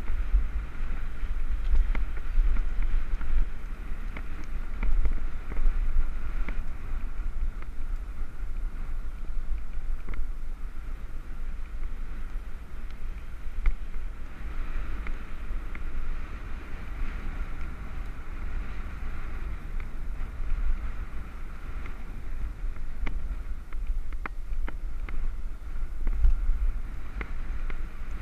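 Wind buffeting the microphone of a head-mounted action camera on a moving bicycle: a steady low rumble with a fainter higher hiss and occasional light clicks.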